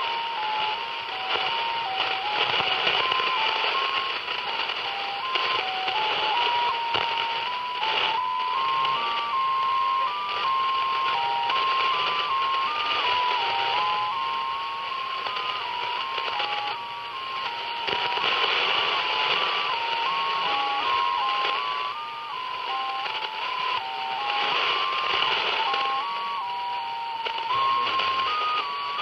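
Shortwave radio receiving a digital data signal on 3580 kHz in the 80-metre band. A single tone hops between pitches a few times a second over steady band hiss, the sound of a multi-tone (MFSK-type) data mode.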